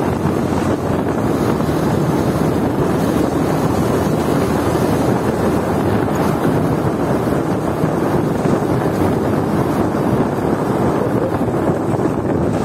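Steady wind rush on the microphone of a KTM motorcycle riding at about 63 km/h, with the bike's engine and tyre noise running underneath.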